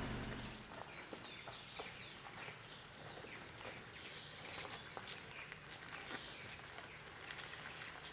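A car engine's steady running fades out in the first second. Then birds chirping: many short, quick high notes that slide downward in pitch, with scattered faint clicks.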